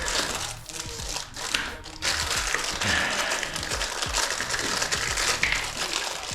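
Plastic crinkling and rustling, with many small clicks, and the rustling gets louder about two seconds in.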